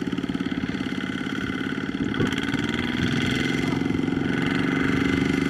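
Single-cylinder diesel engine of a two-wheel walking tractor chugging steadily under load as the tractor, loaded with rice sacks, struggles through deep sticky mud; the engine picks up a little in speed and loudness about halfway through and holds there.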